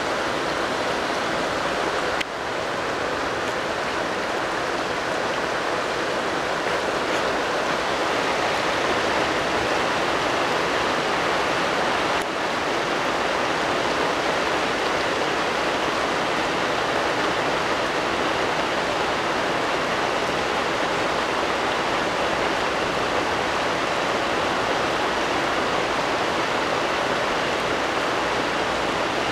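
Heavy thunderstorm rain falling in a steady downpour.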